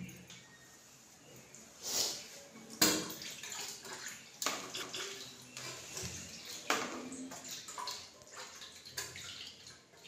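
Hands swishing and splashing in a little water in a ceramic plate, with a few sharper knocks scattered through.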